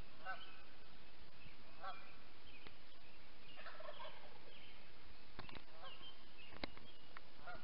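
Wild turkeys gobbling, short rattling gobbles about every two seconds in the first half, with small birds chirping high and a few sharp clicks later on.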